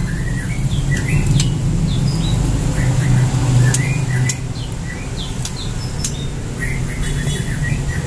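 Caged songbirds giving short, scattered chirps and call notes, with a few sharp ticks, over a steady low background rumble.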